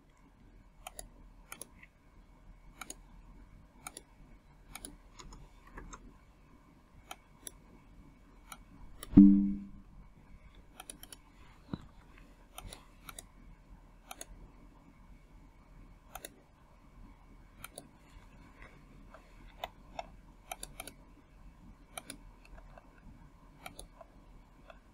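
Computer mouse and keyboard clicking irregularly, one or two clicks a second, over a faint steady electrical hum. A brief low hum about nine seconds in is the loudest sound.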